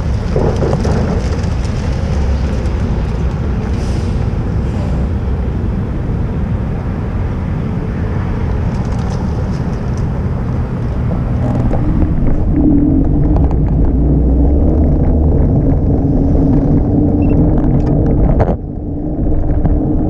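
Steady low rumble of a ride on a Segway Ninebot Max G30LP electric kick scooter: wind on the microphone and road noise. A steady hum joins about two-thirds of the way in, and the rumble drops out for a moment near the end.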